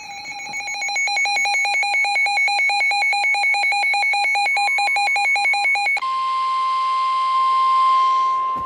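Rapid electronic alarm beeping for about six seconds, then a steady high single tone over radio hiss: the weather radio warning alarm tone that comes before a severe thunderstorm warning is read.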